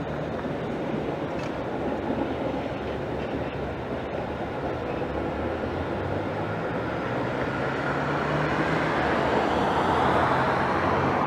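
Light rail train running past on a test run: a steady rumble of wheels and running gear with a low motor hum, growing louder in the last few seconds.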